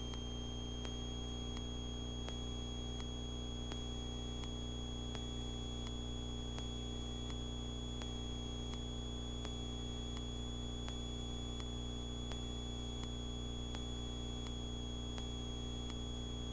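Steady hum inside a light aircraft's cockpit, heard through the headset intercom feed: the engine and propeller drone is muted to a low hum, with a thin high electrical whine held at one pitch.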